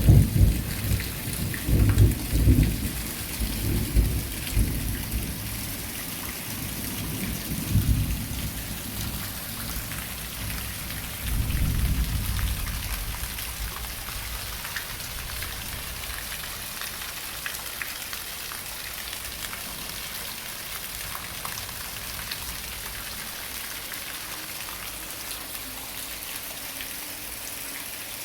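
Heavy rain pouring steadily, with a long rolling rumble of thunder in several swells over the first dozen seconds that dies away, leaving the rain alone.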